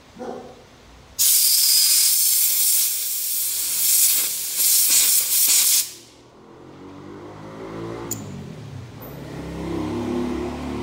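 Compressed air hissing loudly from a workshop air blow gun forced into a thin windshield-washer hose to blow out the salt and mineral scale clogging it, lasting about four and a half seconds with a few surges near the end. Afterwards a low motor hum rises gradually.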